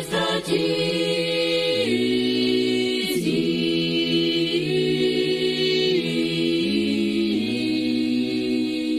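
Unaccompanied choir singing Orthodox akathist chant in slow, held chords, moving to a new chord a few times.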